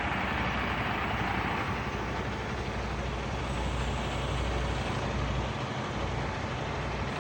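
Crane truck's engine running steadily, a low, even drone with no rise or fall.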